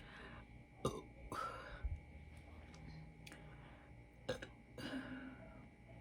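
A woman burping twice, short belches from gulped soda. Each burp comes about half a second after a sharp click, the first about a second in and the second past four seconds.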